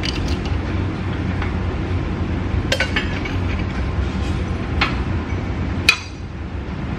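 Steel sockets clinking against the steel plates of a shop press as they are set in place: a handful of sharp metal clinks, the loudest near the end, over a steady low hum.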